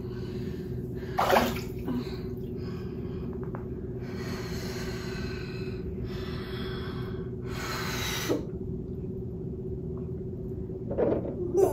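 Long breaths and water moving in a filled birth tub, over a steady hum, with a short vocal sound near the end.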